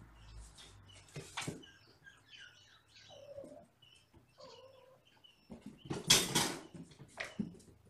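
Kittens playing: a few faint, short kitten calls, then a loud burst of scuffling, bumping and scrabbling about six seconds in, with another brief bump shortly after.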